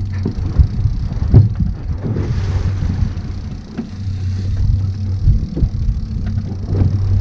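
A boat's engine runs with a steady low hum, broken by irregular knocks and thumps. The hum weakens about two seconds in and comes back strongly about two seconds later.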